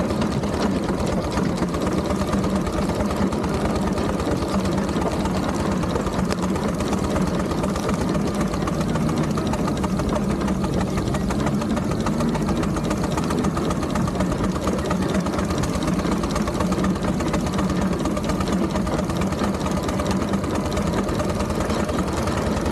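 Steam traction engine running steadily on the move, with a rapid, even mechanical beat.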